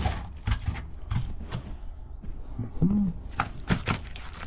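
Irregular knocks and taps of a hand working around a mobile home's sheet-metal floor duct opening, with one brief low tone about three seconds in.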